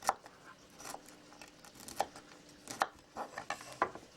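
Small sharp kitchen knife cutting cauliflower into tiny florets. The blade gives about seven sharp, irregular knocks, each under a second apart.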